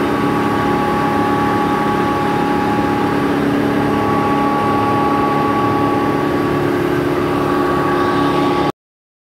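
Impact pulverizer turmeric grinding plant running steadily: an even, loud machine drone with several held whining tones. The sound cuts off abruptly near the end.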